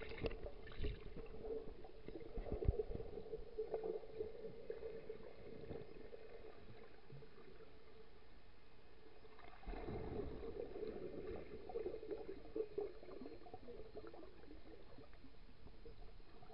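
Muffled underwater sound from a camera held under lake water: low rumbling water movement with a faint steady hum and a few knocks in the first few seconds, swelling briefly a little before halfway.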